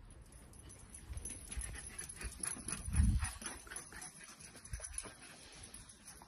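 Two dachshunds scuffling and tugging over a ball on a lawn: a run of quick rustling clicks, with a dull thump about three seconds in.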